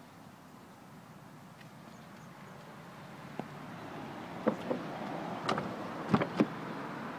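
Several short clicks and knocks from handling a car's door and interior trim, the loudest two close together near the end, over a steady background noise that slowly grows louder.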